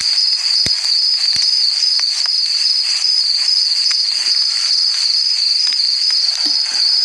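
Crickets chirping in a steady, high-pitched chorus, with a couple of soft knocks in the first second and a half.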